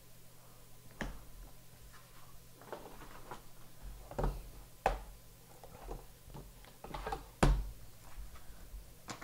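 Trading cards in rigid plastic top loaders being handled and set down on a mat: scattered clicks and taps of plastic, the sharpest about five and seven and a half seconds in, with light rustling between.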